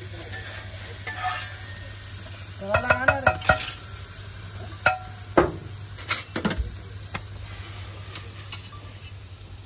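Hot tadka oil sizzling on a steel plate of egg curry, with steel utensils clinking and scraping: a quick cluster of ringing clinks about three seconds in and a few more a couple of seconds later.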